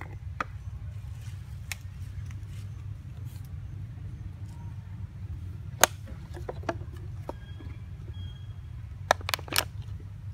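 Scattered sharp clicks and crinkles of a thin plastic water bottle handled by a young long-tailed macaque, the loudest about six seconds in and a quick cluster near the end, over a steady low rumble.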